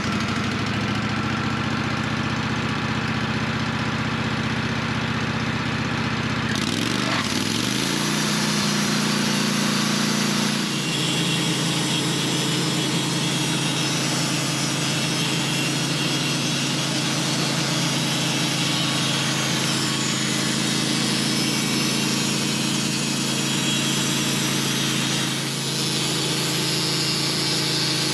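Portable sawmill's engine, just started, idling, then throttled up about seven seconds in, its pitch rising to a steady higher running speed.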